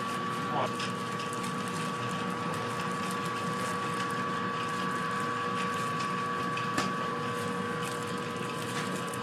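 Steady mechanical hum of shop equipment, with a constant whine and a couple of faint clicks.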